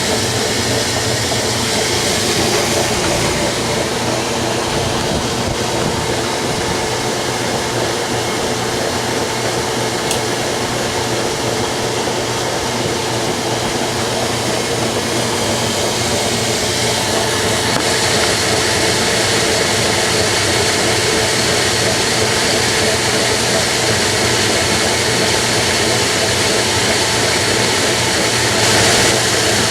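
Washing machine running with its cabinet removed: a steady, loud mechanical whir and hum from the motor and drum, with a higher whine that comes in about seventeen seconds in.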